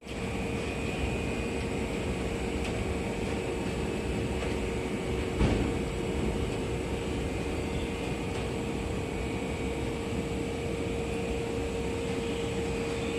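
Stationary electric train idling: a steady hum with one constant tone from its onboard equipment over an even hiss, with a single thump about five and a half seconds in.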